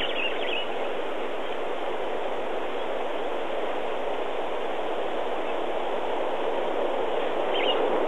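Safari game-drive vehicle driving along a bush track: a steady, even noise of engine and tyres on the move, with a couple of brief high chirps near the start and again near the end.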